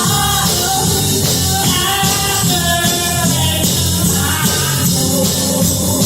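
Music: singing over a band, with a steady bass line underneath.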